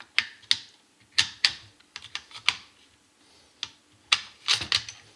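Metal parts of an SKS rifle clicking and clacking as the gas tube with its piston is fitted back onto the barrel. It is a string of irregular sharp clicks, the loudest cluster coming near the end.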